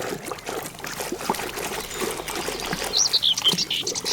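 Toys being washed by hand in a tub of water: light, irregular splashing and clatter. Birds call with short, high, sweeping notes from about three seconds in.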